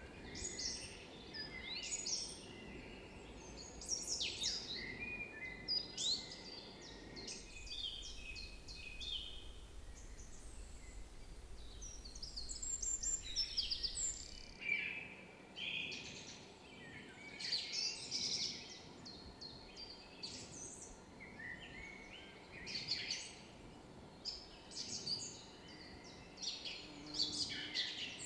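Woodland birdsong: repeated bursts of quick, high chirping and trilling song. A faint low rumble lies under the first half and stops about halfway through.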